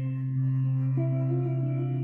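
Background instrumental music: a long held low note with steady higher tones above it, and a new higher note coming in about a second in.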